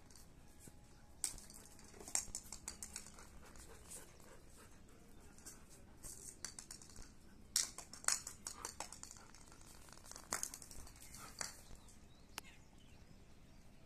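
Scattered light scrapes and taps as a German Shepherd paws and noses a small ball about on a concrete floor, its claws scuffing the concrete.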